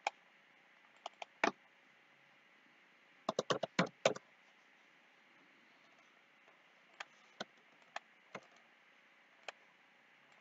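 Scattered sharp clicks from a computer mouse and keyboard while CAD software is operated, including a quick run of about six clicks between three and four seconds in.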